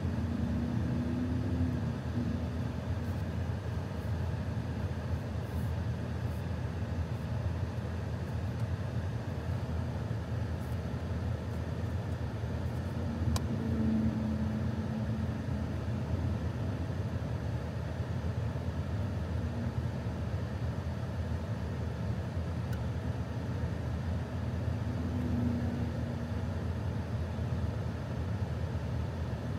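Steady low rumble inside the cabin of a 2023 Range Rover standing with its engine idling.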